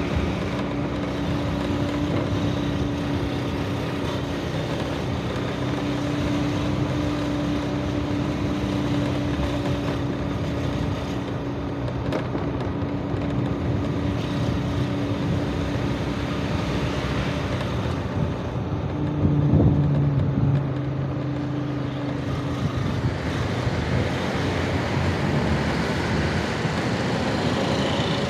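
City street traffic heard from a moving scooter: steady engine and road noise from cars and scooters, with some wind on the microphone. About nineteen seconds in, a louder vehicle goes by close for a couple of seconds.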